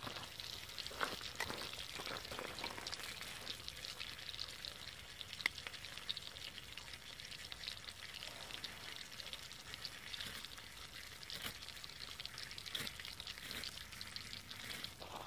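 Food sizzling in a small pan set in a wood campfire: a steady frying hiss dotted with small pops and crackles.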